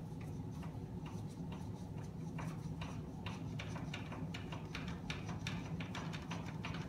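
Screwdriver turning the spring-loaded top adjustment screw of a sliding screen door, making a run of light clicks, sparse at first and then several a second. The screw is being tightened to take up the door's excess play.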